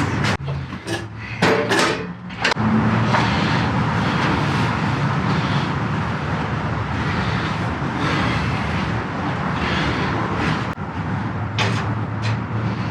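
Knocks and clunks as a heavy cast-iron horizontal/vertical bandsaw is lifted and set down onto its stand, a cluster in the first couple of seconds and a few more near the end, over a steady low mechanical hum.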